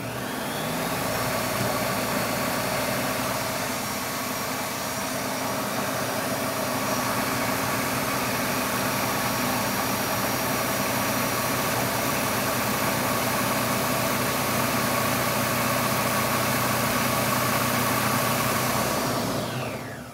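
Food processor motor starting up with a rising whine, running steadily as it blends almonds, garlic and oil into a purée while water is added, then winding down near the end.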